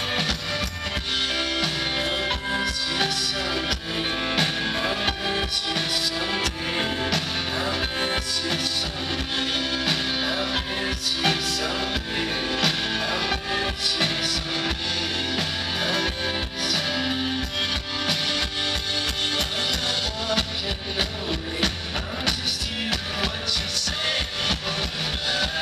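Live indie-folk band playing a song: strummed guitars over bass and a drum kit keeping a steady beat.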